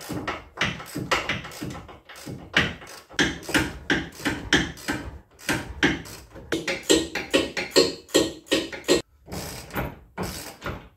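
Hand ratchet clicking in quick, irregular runs of strokes, with metallic knocks of the tool against the hub. It is working loose the tight factory 15 mm bolts that hold the rear wheel hub to the knuckle.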